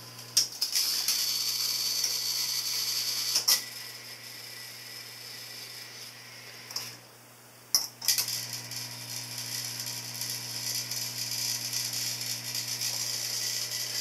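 Trane XV90 gas furnace powering up with its blower fan not yet running: a steady motor hum with a high hiss, broken by sharp clicks about half a second in, around three and a half seconds and near eight seconds. The hum drops away after the second click, almost stops around seven seconds and comes back with the last click.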